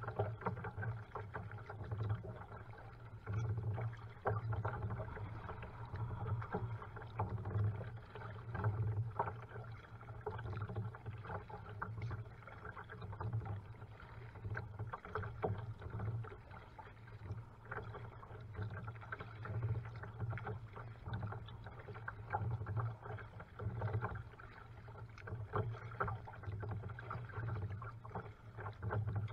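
Water splashing and lapping around a kayak as it is paddled along a river, in uneven surges every second or two, over a low rumble.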